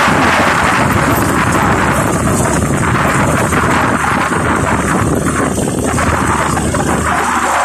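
Wind buffeting the microphone of a moving motorcycle, over the motorcycle's engine running and road noise, steady throughout.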